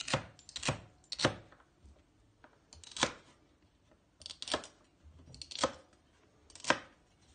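Kitchen knife chopping celery on a plastic cutting board: sharp knocks of the blade hitting the board, three in quick succession about half a second apart, then a few more spaced single strikes.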